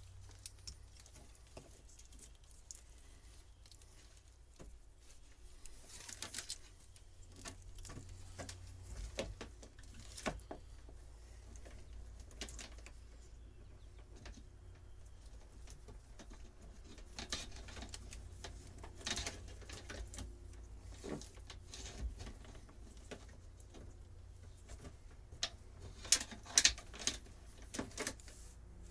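Scattered small clicks, taps and rustles of wiring being handled, over a low steady hum. A few sharper knocks come near the end.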